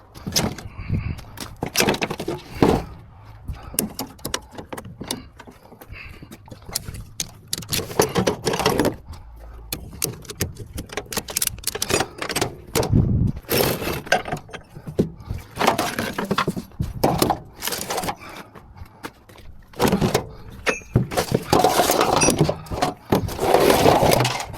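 Irregular knocks, clanks and rattles in uneven bursts, as from handling work while a small loader is unloaded.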